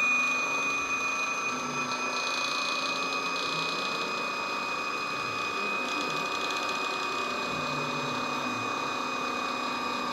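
Small battery-powered electric motors spinning the fans in a homemade model airliner's engine nacelles: a steady whine.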